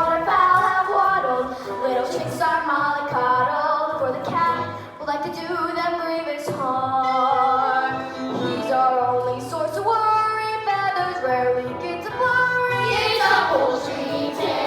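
Show-tune music with singing, a melody stepping from note to note, growing fuller near the end.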